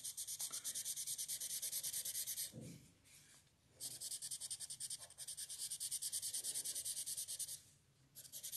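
Pencil shading on paper: quick back-and-forth strokes at about seven a second, in two long runs with a pause of about a second between them and a short run near the end.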